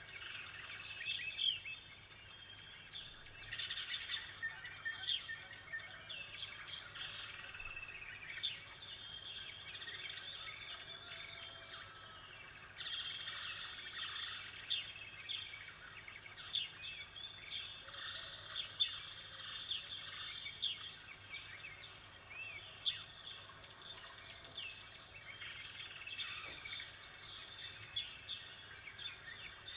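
Several birds chirping and singing together, many short overlapping calls with bursts of rapid trilling notes.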